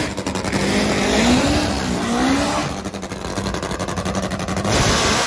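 Nitro-burning Top Fuel drag motorcycle engine running loud, its rapid firing pulses crackling as it is revved.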